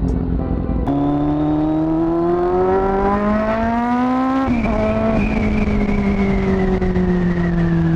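Aprilia Tuono V4 motorcycle's V4 engine accelerating hard through a gear, its pitch climbing steadily for a few seconds, then a gear change about four and a half seconds in, after which it runs on with the pitch slowly dropping.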